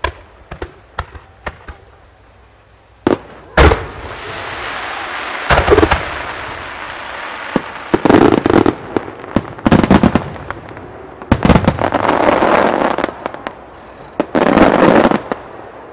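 A rapid barrage of aerial fireworks: a run of sharp pops, then loud booms about three seconds in. After that come clusters of bursts over a long crackling hiss, thickest near the middle and again near the end.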